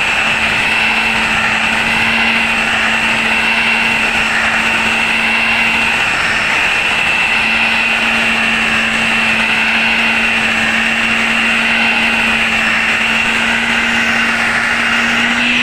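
A power tool's electric motor running steadily at full speed, with a constant hum and a high whine over a rushing noise.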